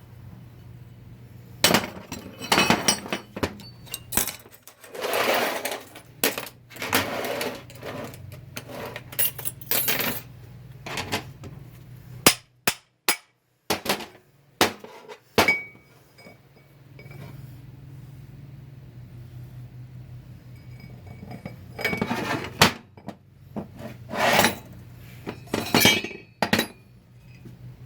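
Metal tools and steel transmission parts clanking and clinking during a 4L60-E automatic transmission teardown: clusters of sharp knocks and rattles, with a steady low hum underneath.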